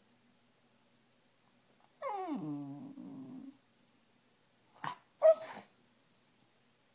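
Miniature schnauzer vocalising: a whine of about a second and a half that slides down in pitch into a low grumble, then a short sharp sound and a single brief bark, the loudest sound.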